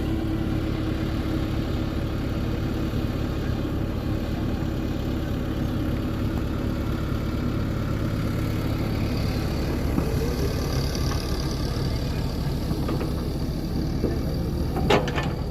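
Liugong 915E excavator's diesel engine running steadily, with a couple of sharp metallic clanks near the end.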